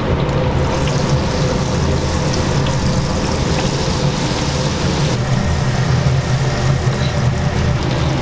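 Chicken deep-frying in a vat of hot oil, a steady hiss and crackle, over a steady low hum.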